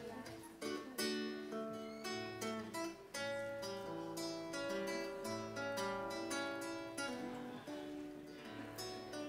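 Acoustic guitar playing an instrumental interlude: a melody of separately plucked notes over held bass notes.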